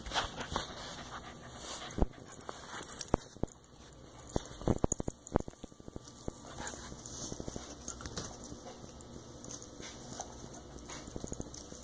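Australian Shepherd–corgi mix puppy playing with a black rubber toy, mouthing it and batting it across the carpet: scattered knocks and clicks, with a quick run of them about four to five and a half seconds in.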